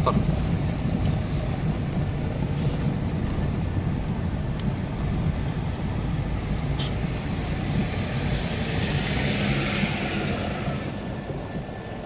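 Inside a moving car: a steady low rumble of the engine and tyres running over a stone-paved street, with a few light knocks. A hiss swells and fades about nine to ten seconds in.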